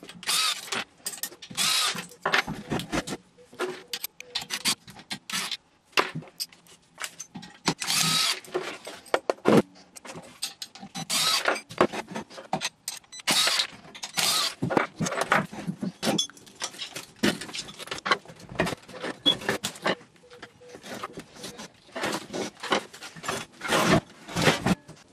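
Irregular clattering, clicks and knocks of metal parts, bolts and tools being handled and set down on a wooden workbench while a sonar transponder housing is taken apart.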